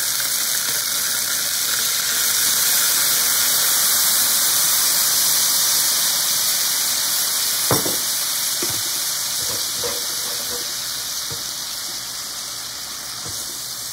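Teriyaki sauce sizzling and bubbling hard in a hot electric skillet around pan-fried chicken thighs, the hiss easing off gradually. A few light knocks come in, the clearest a little after halfway.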